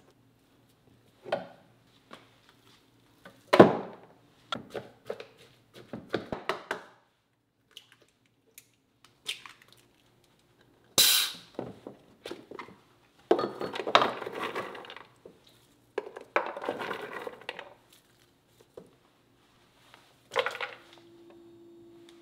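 Kitchen prep handling sounds: a plastic spatula scraping and tapping mashed steamed kabocha squash in a glass measuring jug, knocks of the jug and a plastic blender jar set down on a wooden counter, and walnuts poured into the blender jar with a dry rattle, in scattered bursts with quiet gaps between them.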